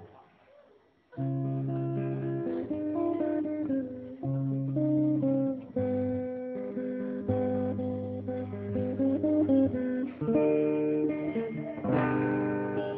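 Guitar playing a slow chord introduction, with no singing. It comes in after about a second of near silence, and the chords change every second or two.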